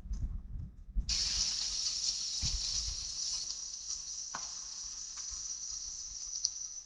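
Low thumps for about a second, then a steady high hiss of falling rain that starts abruptly.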